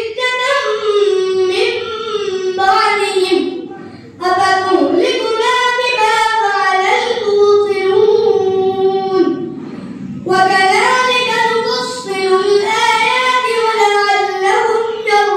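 A boy reciting the Quran in a slow melodic chant into a microphone, drawing out long held notes in phrases, with short breath pauses about four and ten seconds in.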